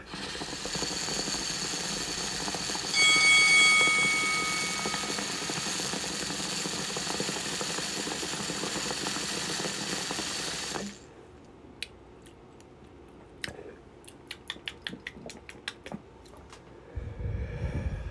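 A glass dab rig being pulled on as rosin vaporises on its hot quartz banger: a steady bubbling, sizzling hiss, with a thin whistle of air about three seconds in, stopping suddenly after about eleven seconds. Scattered light clicks and pops follow, then a short breathy exhale near the end.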